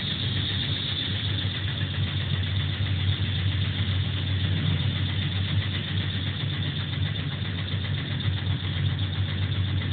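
Electric pressure-test pump running steadily with a low hum, building up water pressure in a steel vessel under a hydrostatic pressure test.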